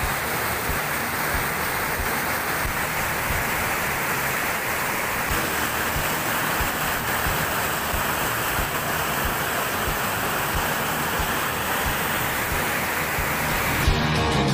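Whitewater rapids rushing steadily over and around river boulders, a constant roar of moving water. Music comes in near the end.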